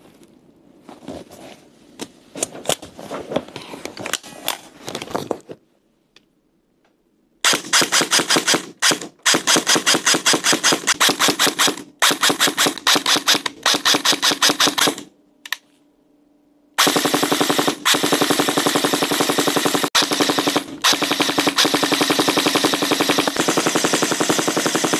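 Krytac KRISS Vector Gen 2 airsoft electric gun firing on full auto, its gearbox cycling very fast: several short bursts, then one long continuous burst of about eight seconds. The first few seconds hold irregular clicks and knocks from handling the gun.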